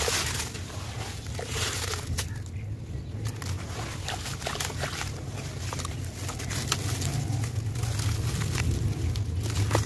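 Wet charcoal and sand chunks crushed between hands in a tub of water: gritty crunching and crackling, with wet pieces splattering back into the water, over a steady low hum.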